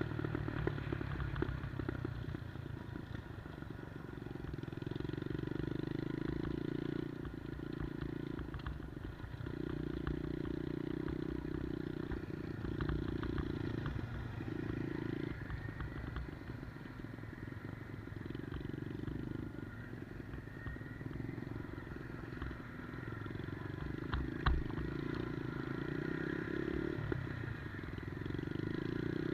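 110cc Monkey-style minibike's single-cylinder four-stroke engine running while ridden, its note rising and falling with throttle and gear changes. A single sharp knock comes about three-quarters of the way through.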